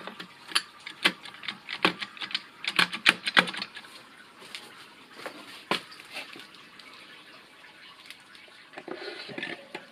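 Steel clutch parts of a JATCO JR710E automatic transmission clicking and clinking as the direct clutch assembly is handled and lifted off the mainshaft: a quick run of sharp clicks over the first three or four seconds, then only a few scattered ones.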